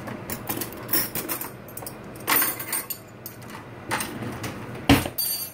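Metal cutlery clinking as a spoon is fetched: a few separate clinks and knocks about a second apart, the loudest near the end.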